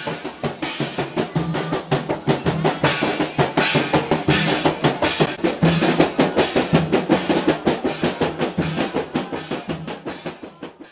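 Rebana Mandar ensemble: several large frame drums beaten by hand together with a snare drum, in a fast, dense interlocking rhythm. The playing fades out near the end.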